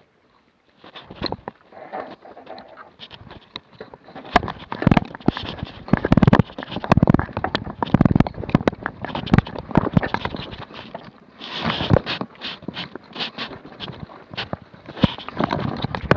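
Mountain bike rattling and knocking as it is ridden slowly over rough, rocky trail, picked up through the handlebar-mounted camera: a dense run of irregular knocks and clatter that starts about a second in and grows louder about four seconds in.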